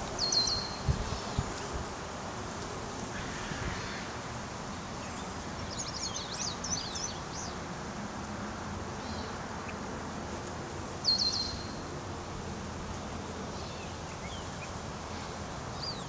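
Steady hum of a honey bee swarm clustered on a branch. Short high bird chirps come three times: near the start, about six seconds in, and about eleven seconds in.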